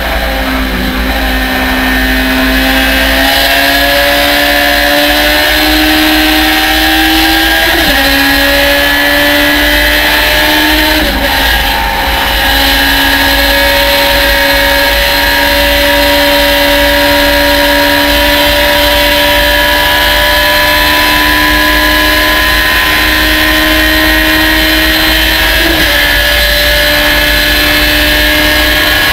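Thunder Roadster race car's engine pulling hard at full throttle, its pitch climbing slowly and dropping suddenly at each upshift, twice in the first half and once near the end, as it runs up through the gears to top gear. Wind rush in the open cockpit runs under it.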